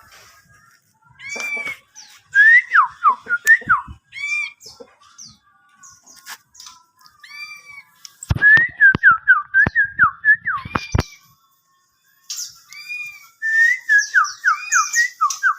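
White-rumped shama (murai batu) singing: three bouts of quick, falling whistled notes mixed with higher arched calls. There are several sharp clicks near the middle.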